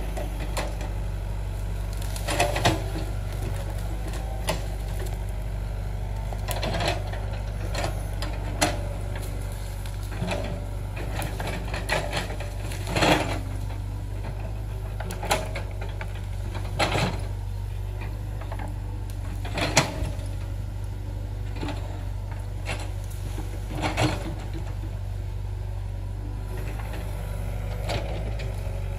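Hitachi mini excavator's diesel engine running steadily while it digs out tree roots and soil, with sharp knocks and clanks every few seconds.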